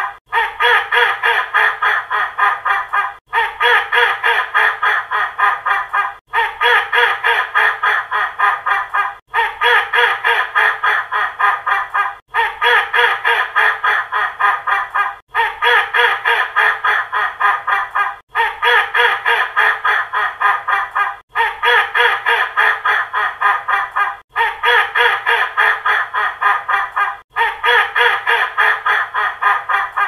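Angry duck quacking in quick, continuous runs. The same roughly three-second recording is looped over and over, with a brief break about every three seconds.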